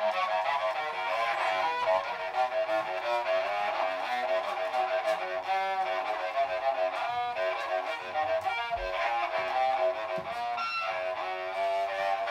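Found-object cello fitted with a horn, bowed in a continuous run of changing notes with little bass and some scraping bow strokes.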